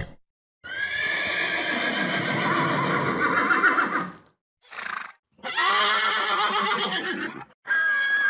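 Horse whinnying several times: a long neigh lasting a few seconds, a brief one, then another long neigh, with a short one starting at the very end.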